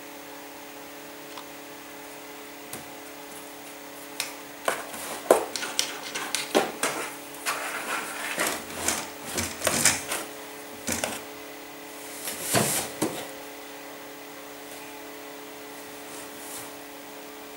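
Cats scuffling among cardboard boxes on a wooden shelf: a run of scrapes, rustles and knocks as the boxes are shoved and clawed, starting about four seconds in and dying away after about nine seconds.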